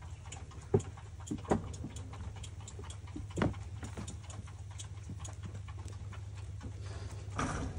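Scattered light knocks and taps as goat kids hop about and nudge an upturned plastic bucket, a handful of separate strikes with the loudest about three and a half seconds in, over a faint steady low hum.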